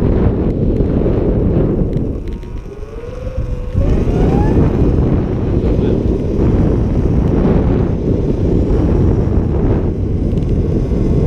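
Wind buffeting the microphone of an onboard camera on a Surron X electric dirt bike riding along. About two to four seconds in, the wind eases and the electric motor's whine rises in pitch as the bike accelerates, with the battery's BMS bypassed and the controller set to 7,000 watts at 100%.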